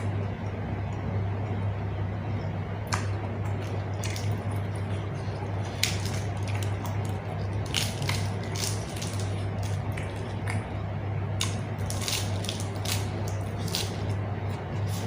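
Close-up eating sounds: wet chewing and lip-smacking, with a run of short, sharp smacks and crunches from about three seconds in, over a steady low hum.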